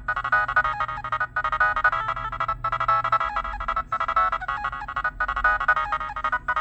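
Preloaded ringtone of a Nokia 6010 mobile phone playing a fast electronic tune of quick short notes. The tune breaks off briefly about every second and a quarter as its phrase repeats.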